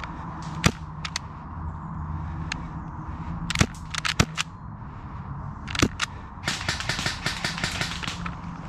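Airsoft gunfire: scattered sharp single cracks, then a dense run of rapid crackling for about two seconds near the end.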